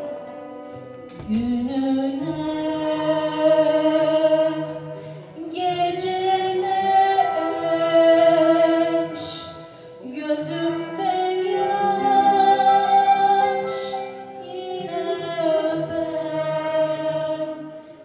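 Mixed choir singing Turkish classical music with ud and kanun accompaniment. The voices hold long notes in phrases, pausing briefly about every five seconds.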